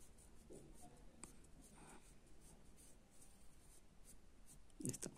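Pencil lead scratching faintly across paper in a series of short strokes. A brief, louder sound comes near the end.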